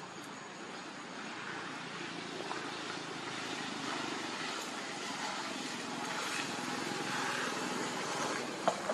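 Steady outdoor background noise, an even hiss that slowly grows louder, with two short clicks near the end.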